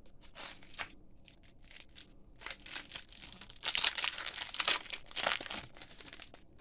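Trading-card booster pack wrapper crinkling as it is handled and torn open: a run of short rustles that is thickest in the middle.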